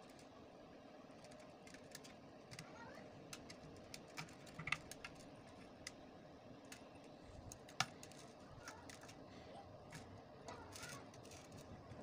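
Faint, scattered clicks and ticks of pliers and a small metal tool working the wire mesh on a gas heater's ceramic burner plate, with two sharper clicks about five and eight seconds in.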